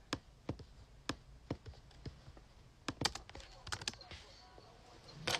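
Computer keyboard keys and mouse clicks tapped irregularly, with a quick run of clicks about three seconds in, as a recording session is worked on the studio computer. A louder thump comes near the end.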